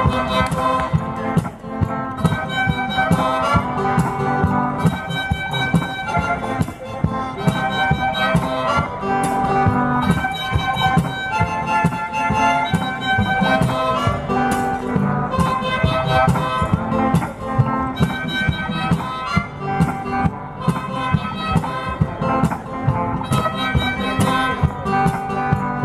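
One-man band playing live: guitar over a steady beat from the drum strapped to his back.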